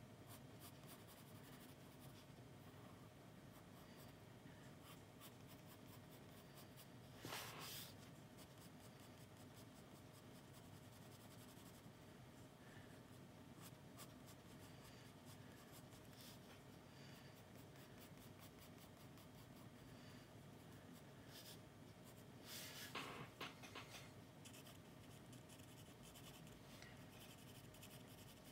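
Pencil scratching on sketchbook paper in faint short strokes, with two louder, longer scratching strokes, about seven seconds in and again around 23 seconds in.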